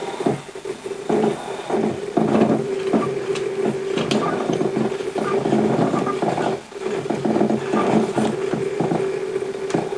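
Stepper motors of a 3D-printed six-axis robot arm moving, with a steady motor whine and rapid clicking and rattling, in two runs with a brief stop about two thirds of the way through.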